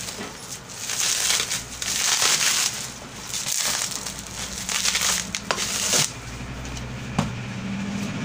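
Plastic bubble wrap crinkling and crackling in several bursts as it is pulled and crumpled off a plastic tub, stopping about six seconds in. Two small taps follow.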